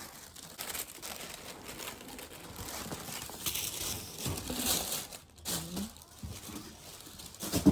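Wrapping crinkling and rustling by hand as a new handbag is unwrapped, in irregular bursts, with a sharp knock near the end.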